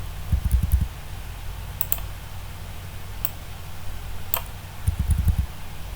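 Computer keyboard typing and clicking: two short bursts of rapid dull key taps, about half a second each, near the start and near the end, with a few sharp single clicks in between.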